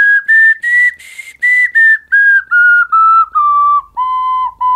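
Small 3D-printed PLA ocarina playing a short melody. Separate clear notes climb step by step, turn breathy on the highest ones, then step back down, and end in a run of quick short repeated notes.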